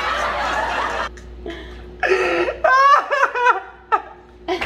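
A young girl laughing hard: a loud, breathy burst at first, dying down about a second in, then breaking out again in rising and falling laughs.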